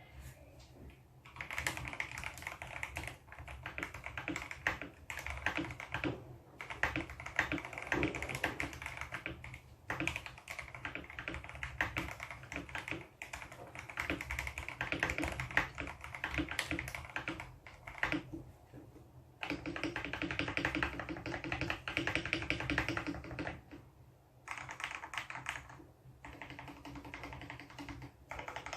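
Typing on a Tes 68 mechanical keyboard: fast runs of keystrokes in bursts of several seconds, broken by short pauses.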